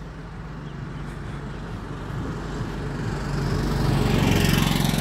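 A motor vehicle's engine approaching, its steady hum growing louder to a peak about four seconds in, with a rising hiss of road noise.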